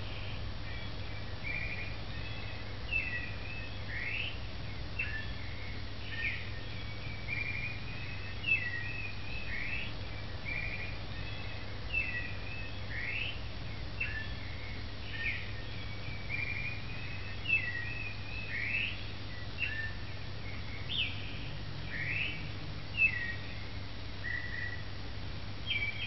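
Birds chirping: a steady run of quick whistled chirps and short upward sweeps, several a second, over a low steady hum.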